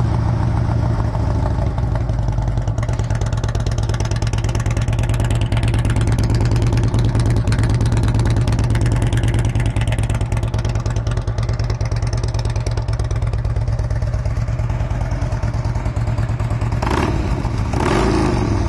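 A 2007 Harley-Davidson Road King Classic's 96-cubic-inch V-twin idling steadily, through what the seller takes for aftermarket mufflers. It swells briefly twice near the end.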